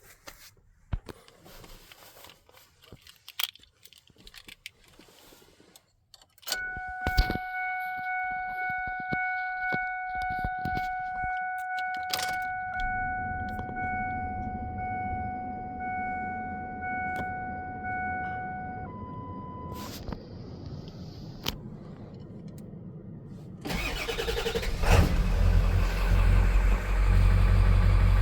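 1999 Ford F350 pickup cold start. Keys jangle and there are small clicks, then a steady dashboard warning chime sounds for about twelve seconds. Near the end the engine cranks, catches and settles into a loud, steady idle.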